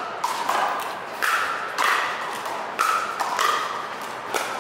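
Pickleball rally: paddles hitting the plastic ball back and forth, about six sharp pocks, each with a short ring.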